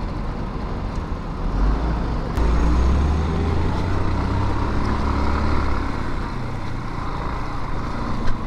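Motorcycle engine running while the bike is ridden along a rough dirt road, with road noise. The low rumble grows louder about two and a half seconds in and holds.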